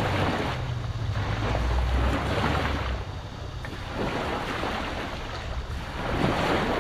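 Wind buffeting an action-camera microphone over the sound of sea water, surging every second or so. A low steady hum runs underneath for about the first three seconds, then fades.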